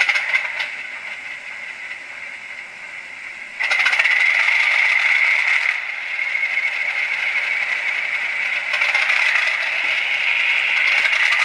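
LokSound 4 DCC sound decoder playing a locomotive engine sound through a small 4-ohm speaker on an ESU decoder tester, thin and tinny with little bass. It steps up louder about three and a half seconds in, eases back about two seconds later, and rises again near nine seconds.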